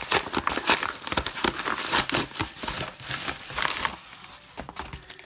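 Yellow padded paper bubble mailer crinkling and crackling in the hands as a boxed item is worked out of it; the crackling thins out and gets quieter about four seconds in.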